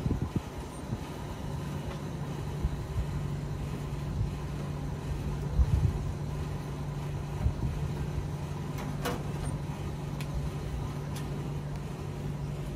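A steady low motor hum that comes on about a second and a half in, over a low rumble, with a few sharp clicks in the last few seconds.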